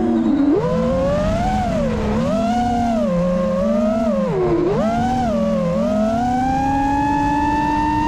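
FPV quadcopter's brushless motors (T-Motor Pro V 2020KV) and propellers whining, the pitch swooping down and back up several times with the throttle, dropping lowest just before the start and again about four and a half seconds in. From about 6 s on the whine rises slowly and steadily as the throttle is held up.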